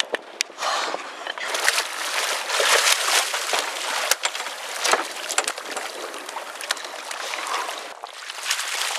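Sea water rushing and splashing along the hull of a sailboat under way, with a few sharp clicks.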